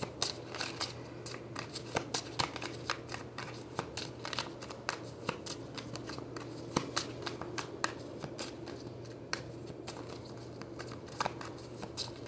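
A deck of tarot cards being shuffled and handled by hand: a quick, irregular run of card clicks and flicks.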